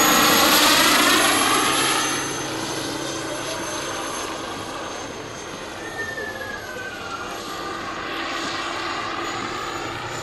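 Large radio-controlled scale SA-315B Lama helicopter with a Jakadofsky Pro X kerosene turbine, flying past with a high turbine whine and rotor noise. It is loudest in the first two seconds as it passes close, then quieter as it moves away, and the whine drops slightly in pitch as it goes.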